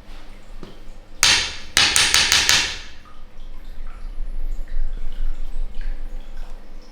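A quick run of about six sharp knocks or slaps in about a second and a half, a little over a second in.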